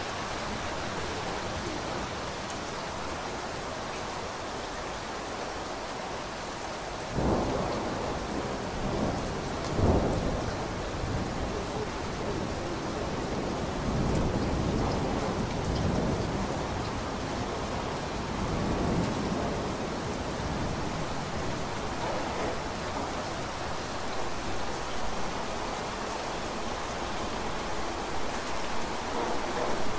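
Steady rain falling, with a sudden clap of thunder about a quarter of the way in, followed by rolling thunder rumbling for ten seconds or so before fading back under the rain.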